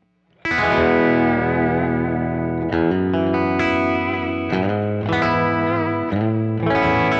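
Electric guitar chords played through a Kemper Profiler running a profile of a small Fender Princeton amp. The guitar comes in about half a second in, with a new chord struck about every second and each left ringing.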